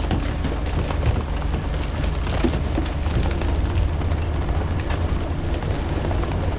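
A boat engine running steadily under a constant rush and splash of water, with scattered small knocks.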